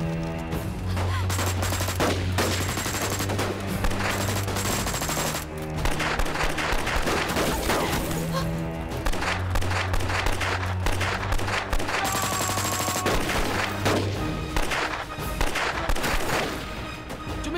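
Film battle gunfire: rapid, overlapping shots from several guns, over a low, droning music score.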